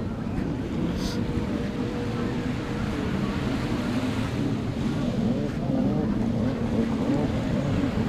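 Beach ambience: wind rumbling on the microphone over small surf, with a steady engine hum underneath; the higher part of the hum fades out about three seconds in.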